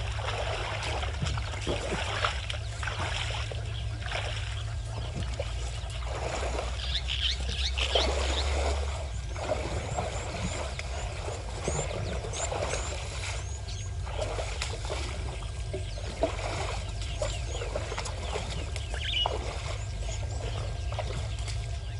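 Elephants wading and drinking at a waterhole: water sloshing and splashing around their legs, with birds giving short high chirps now and then, a cluster of them around the middle.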